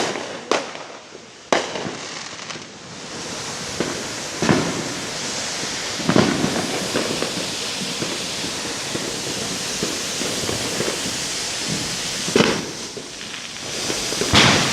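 Fireworks going off: several sharp bangs in the first couple of seconds and again near the end, over a continuous crackle in between.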